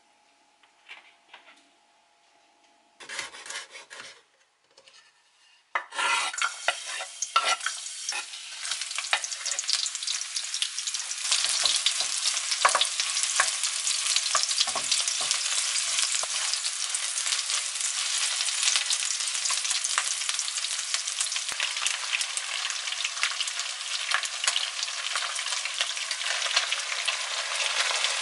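Sliced garlic and onion frying in hot oil in a non-stick wok. A short sizzle comes about three seconds in, then from about six seconds a loud, continuous sizzle, with the clicks of a wooden spatula stirring the pan.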